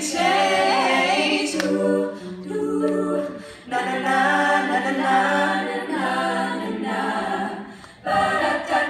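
A cappella choir singing held chords in several voice parts, with short breaks between phrases about three and a half and eight seconds in.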